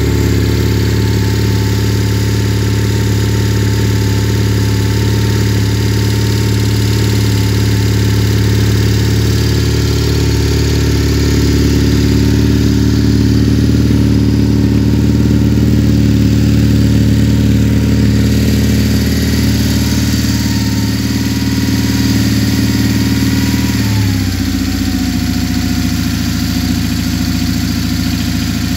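BMW R1100GS's 1085 cc air/oil-cooled boxer twin idling steadily on its stand. About three-quarters of the way through, the idle speed drops a little and settles at a lower, steady idle.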